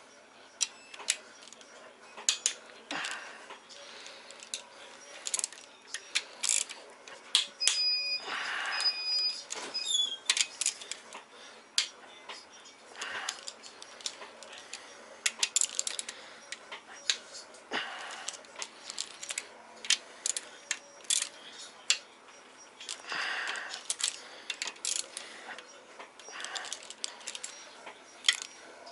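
Hand ratchet clicking and steel tools clinking as the 12 mm connecting-rod cap bolts on a VW VR6 short block are broken loose and run out, in irregular bursts of clicks. A brief high-pitched tone sounds near the middle.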